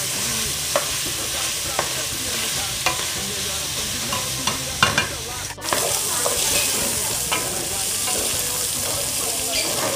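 Chopped fish sausage, bacon and sausage meat frying in an aluminium pot: a steady sizzle as the moisture cooks off and the meat starts to fry, with irregular scrapes and clacks of a wooden spatula stirring against the pot. The sound drops out for a moment about halfway through.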